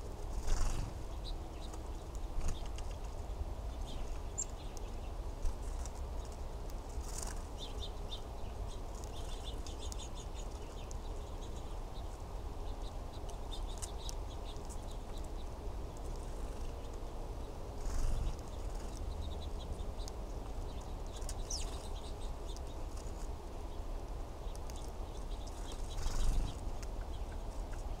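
House sparrows at a seed feeder giving short, scattered chirps, with a few brief wing flutters as birds land and fly off, over a steady low rumble.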